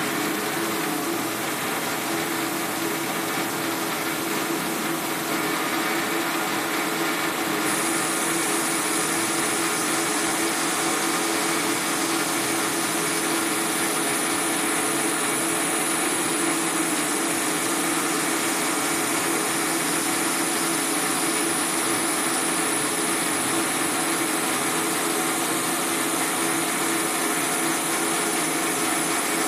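Benchtop metal lathe running steadily with a motor hum, turning a pen blank while the cutting tool peels off long stringy chips. A thin high whine joins about eight seconds in, rising slightly in pitch.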